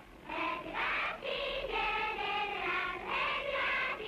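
A group of children singing together in high voices, holding notes that shift from one pitch to the next.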